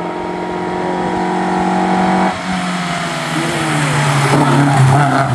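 Ford Escort Mk2 rally car approaching at speed on a wet tarmac stage, its engine running hard. The engine note drops suddenly about two seconds in and then keeps falling as the car nears.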